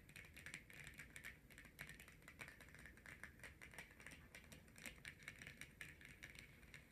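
Long natural fingernails tapping on tarot cards: faint, rapid, irregular taps.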